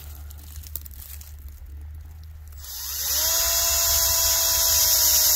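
An electric drill boring a tap hole into a birch trunk for sap: after some faint rustling, it spins up with a quickly rising whine about three seconds in and runs on steadily.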